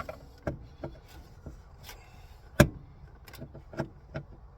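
Screwdriver tip clicking and tapping irregularly against a truck's plastic overhead console while it is worked around to find a hidden screw, with one sharp, louder click a little past halfway.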